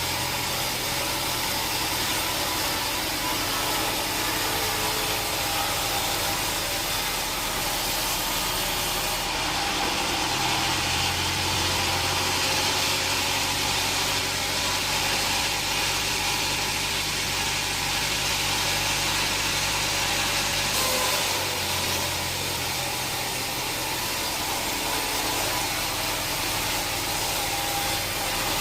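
Sawmill machinery running steadily with a mechanical drone and hiss. From about ten seconds in until about twenty-one seconds the sound fills out, with more hiss and a stronger low hum, then settles back.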